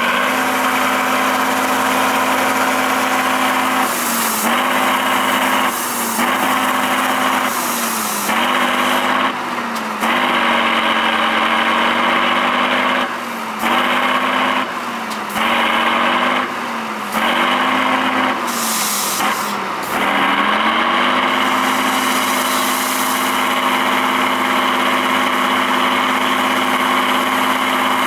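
Tatra 813 6x6 trial truck's diesel engine held at high revs under heavy load in deep mud. Its pitch repeatedly dips for a moment and climbs straight back as the throttle comes off and goes on again.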